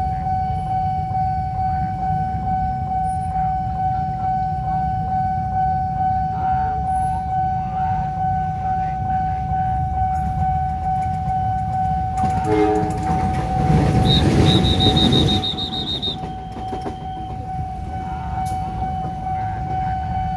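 Level-crossing warning alarm sounding one steady, unbroken tone over the low rumble of idling motorcycle engines. About twelve seconds in, a louder rushing stretch of a few seconds holds a brief low horn blast.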